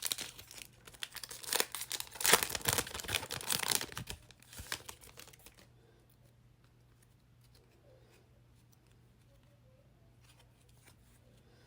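A 2020-21 Donruss basketball card pack's wrapper being torn open and crinkled for about five seconds, then only a few faint ticks.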